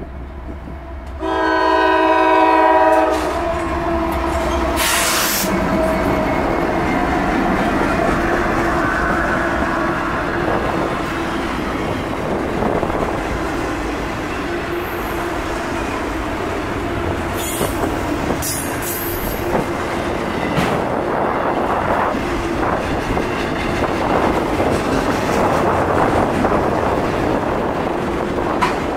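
A Norfolk Southern freight train's diesel locomotive sounds one horn blast of about two seconds, about a second in. Then the locomotives pass and a long string of autorack cars rolls by, with steady wheel-on-rail noise and scattered clanks.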